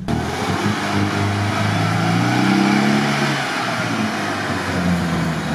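Off-road 4x4's engine revving as it ploughs through mud and water: the revs climb, then drop off sharply about three and a half seconds in and settle lower, over a steady hiss.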